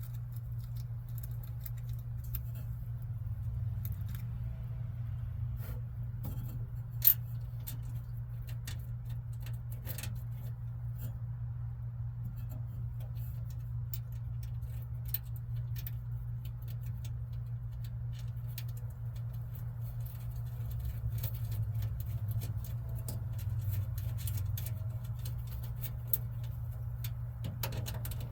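Scattered small metallic clicks and clinks of a wrench and loose hardware being handled while fitting a door handle, with one sharp click about seven seconds in, over a steady low hum.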